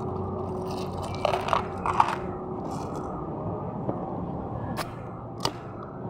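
Steady background hum of a busy outdoor food court, with a brief clatter just after a second in and two sharp clicks near the end, such as skewers or cutlery against a plate.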